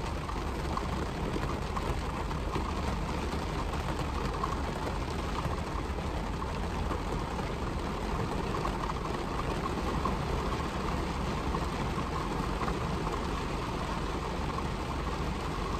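Heavy rain pouring down on a car, heard from inside the cabin as a steady, even hiss.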